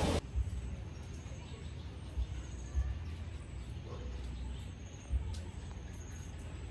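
A loud rushing noise cuts off suddenly just after the start. Then quiet outdoor ambience follows, with faint short high bird chirps and a few low bumps on the microphone.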